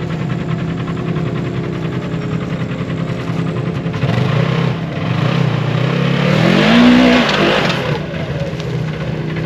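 Side-by-side UTV engine running steadily at low revs, then revved hard about four seconds in. Its pitch climbs to a peak with a loud rush of noise, then drops back to a low, steady run near the end.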